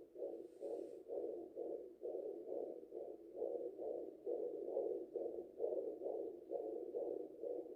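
Home fetal doppler picking up a 34-week baby's heartbeat: fast, even whooshing pulses, a little over two a second, a rate that fits a fetal heart rather than the mother's.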